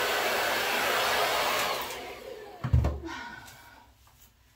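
Handheld hair dryer blowing steadily, switched off about two seconds in, its motor and fan winding down with a falling whine. A thump comes as it dies away.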